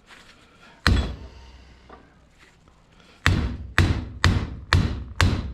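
A hammer beating on a paintball marker to drive out a stuck bolt: one blow about a second in, then a run of five about two a second near the end, each with a short metallic ring.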